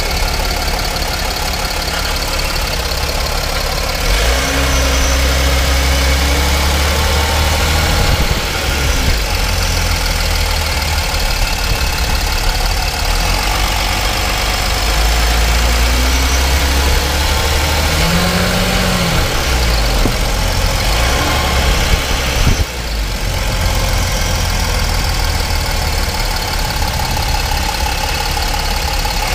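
Mercedes-Benz ML W164 SUV driving, heard from inside its front wheel well: steady road and tyre noise with a low rumble that swells and fades.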